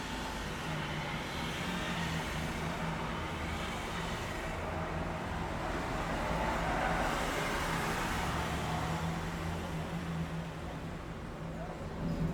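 City street traffic: a steady wash of car and engine noise under a low hum, with a passing vehicle swelling and fading in the middle.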